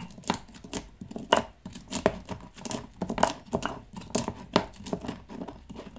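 Stone pestle grinding and crushing wet allspice berries in a volcanic-stone molcajete: rough scraping and knocking strokes of stone on stone, irregular, about three a second.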